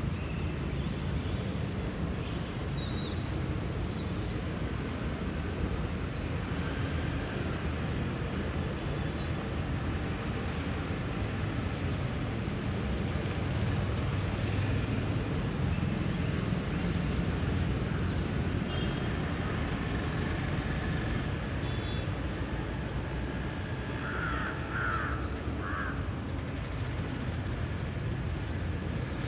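A bird giving three short harsh calls in quick succession near the end, over a steady low rumble.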